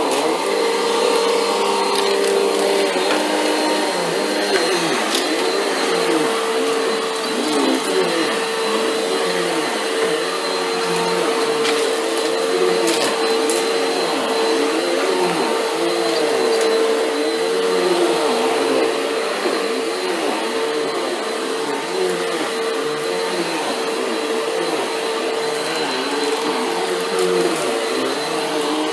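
Upright vacuum cleaner running steadily over carpet, its sound swelling and fading in a regular rhythm as it is pushed back and forth. A few sharp crackles come through as grit and debris are sucked up: the crunchy pre-vacuum before carpet cleaning.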